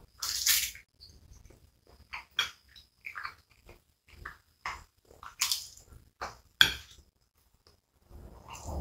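Close-miked eating mouth sounds from chewing chicken and rice: irregular wet chewing clicks and lip smacks, a dozen or so short sharp ones, with a brief lull near the end.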